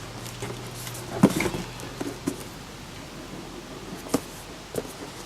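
Parts and packaging being handled: a few scattered knocks and rustles, the sharpest about a second in and another about four seconds in.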